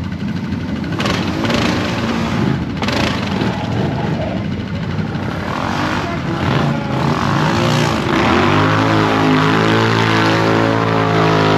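Off-road vehicle engine revving up and down, then held at steady revs for the last few seconds.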